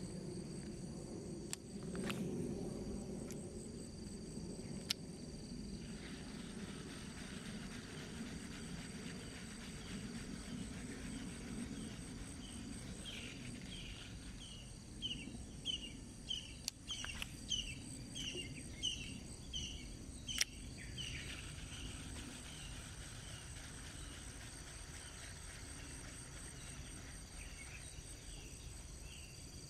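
Outdoor stream-side ambience: insects buzzing steadily at a high pitch, with a low rush of water underneath. About halfway through a bird repeats a short chirping call over and over for several seconds, and a few sharp clicks stand out.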